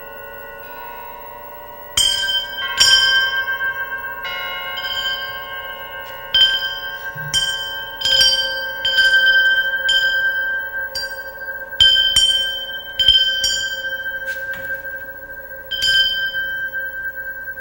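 Rack of upright metal rods, a found-object percussion instrument, struck with sticks: about a dozen irregular bell-like strikes, the first about two seconds in, each ringing on and overlapping the others over several held tones.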